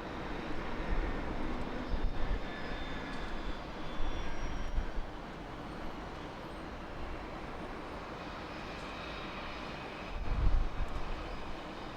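A Southwest Airlines Boeing 737 departing, its jet engines at takeoff power as a steady broad rush with faint high whine. Low rumbling swells come and go near the start, about four seconds in and about ten seconds in.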